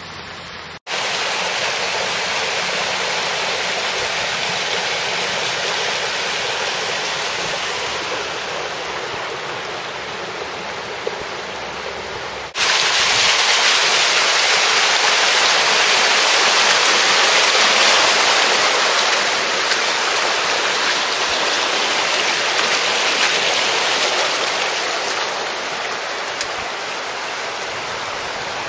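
Floodwater from burst sewer lines and water mains running and churning along a street, a steady rush of water that steps up louder about twelve seconds in as the close-up of fast white water begins.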